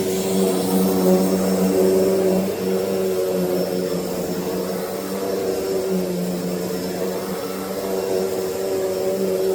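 Hoover Deluxe Elite Rewind upright vacuum cleaner running steadily, its motor giving a steady hum over the rush of air.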